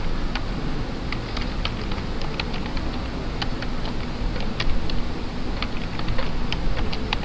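Computer keyboard being typed on: a run of short, irregular key clicks over a steady low background hum.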